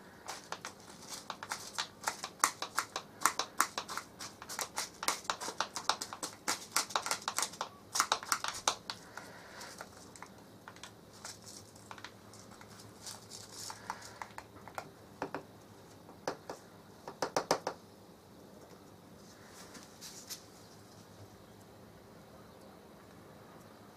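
A teaspoon scooping thymol crystals out of a small jar and tipping them into paper tea-bag sachets: quick clicks and scrapes of the spoon against the jar. The clicking is busy at first, thins out after about nine seconds and dies away after about 18 seconds.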